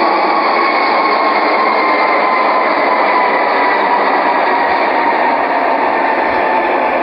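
Jet engines heard from inside an airliner cabin: a steady, loud rush with faint whining tones that slowly fall in pitch.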